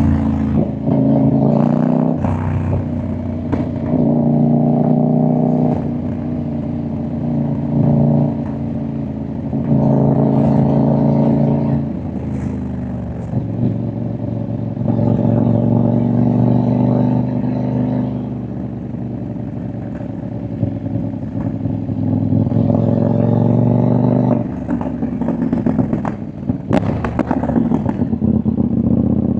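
CFMoto 800NK's 799 cc parallel-twin engine and exhaust while riding at an easy pace, the throttle opening for a few seconds and then closing. A few sharp pops and crackles come on the overrun, the clearest near the end.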